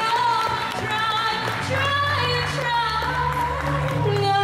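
Female lead vocalist singing live into a handheld microphone, with gliding, ornamented sung phrases over sustained low backing chords.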